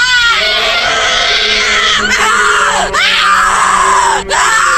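Loud, high-pitched screaming in long drawn-out shrieks, each sliding in pitch as it ends, breaking off and starting again three times.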